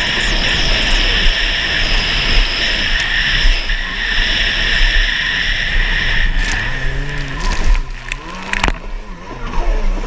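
Stand-up jet ski engine running hard with water spray and wind noise. About six seconds in, the steady high whine gives way to an engine note that falls and rises several times and briefly drops in level, as the throttle is worked through a turn around a buoy.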